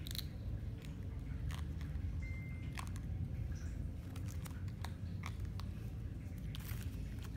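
Scattered small crunches and clicks of food being chewed by a baby macaque and broken apart by hand, over a steady low hum.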